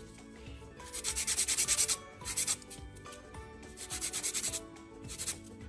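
Hand nail file rasping rapidly back and forth across an artificial nail, in four short runs of quick strokes with brief pauses between them.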